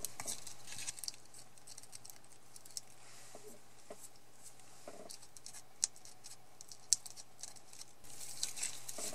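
Quiet handling sounds of paper crafting: double-sided tape being pulled and torn from its roll and stuck onto a card, with scratchy rustling of card stock on a cutting mat. Two sharp clicks come about six and seven seconds in, and the rustling gets busier near the end.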